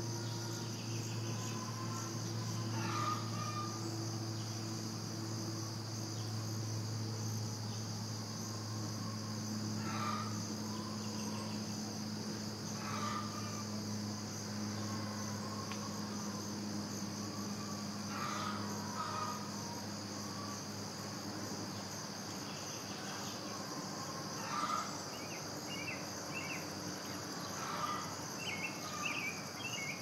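Early-morning farm ambience dominated by the steady high chirring of crickets, over a low steady hum. Brief calls rise out of it every few seconds, and quick high chirps cluster near the end.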